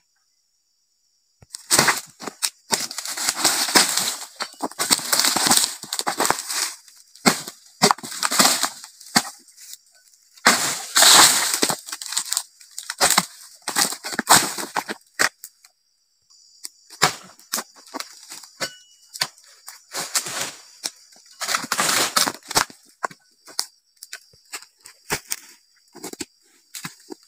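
Oil palm fronds being cut with a long-poled dodos blade and crashing down through the leaves: repeated bursts of rustling with sharp cracks, each lasting a second or so, with short pauses between them.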